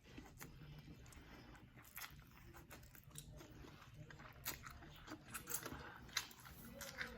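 Faint, close-miked chewing and mouth sounds of someone eating: irregular wet clicks and smacks.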